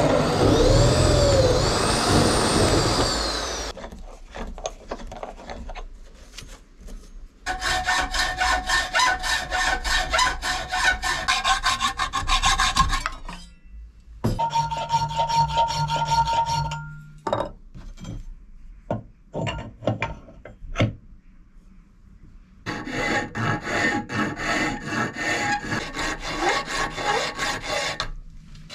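A power tool whirs for the first few seconds, its pitch rising and falling. Then come three runs of rhythmic rasping strokes of a hand tool on metal, like sawing or filing, with a ringing metallic tone. Scattered clicks fall between the second and third runs.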